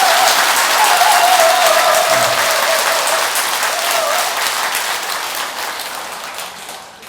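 A roomful of people applauding, a dense clapping that slowly dies away toward the end.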